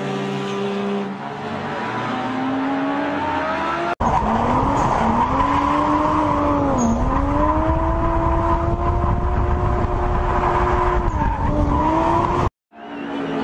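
Sports car engine accelerating, its pitch climbing through the revs. After an abrupt cut it runs louder with a heavy low rumble, the engine note dipping briefly and recovering about seven seconds in. It cuts out suddenly near the end, then the engine note returns.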